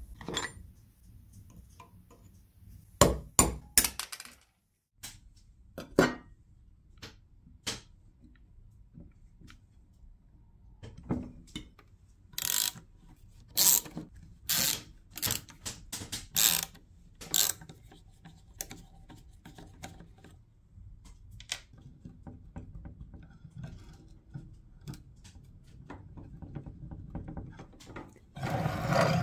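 Workshop handling of an old milk-fat tester's metal gearbox: sharp clinks and knocks of metal parts on a wooden bench. In the middle comes a run of short bursts from a cordless drill/driver working the screws of the plate over the gears, and near the end a longer noisy burst.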